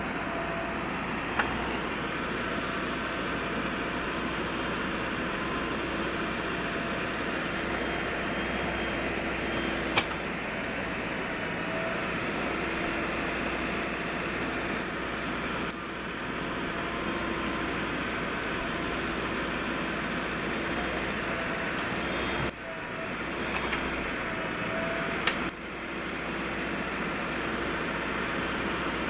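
JCB backhoe loader's diesel engine running steadily, with a few brief sharp knocks.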